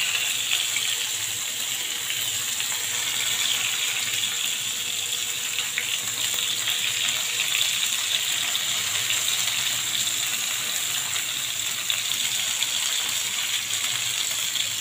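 Masala-coated fish pieces sizzling in hot oil in a pan: a steady, even hiss.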